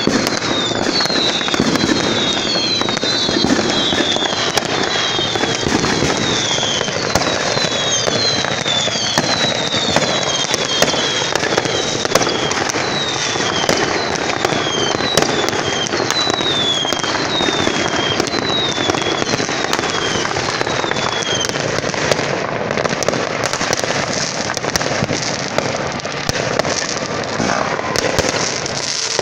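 Many fireworks and firecrackers going off at once at a distance, a continuous din of bangs and crackles. Through the first two-thirds there is a run of short falling whistles, about one a second.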